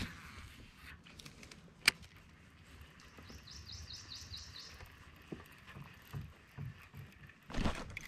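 Quiet outdoor background on the water from a kayak, broken by a single sharp click about two seconds in. A little later a bird calls a quick run of about seven high notes, and louder handling noise starts near the end.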